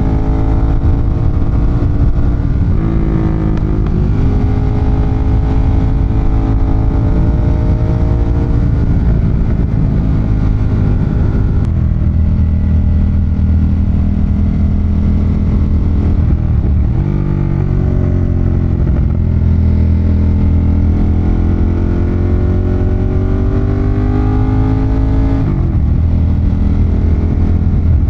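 Ducati Monster 1200's L-twin engine running under way, its pitch slowly climbing and easing off with the throttle and breaking abruptly at gear changes a few times.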